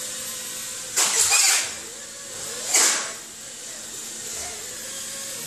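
Micro FPV racing quadcopters flying past close by twice, about a second in and again near three seconds, each pass a loud, high-pitched buzz that swells and fades. A steady whine of other quads' motors runs underneath.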